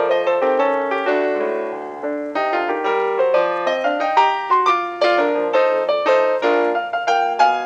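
Background piano music: a lively tune of quick, struck notes.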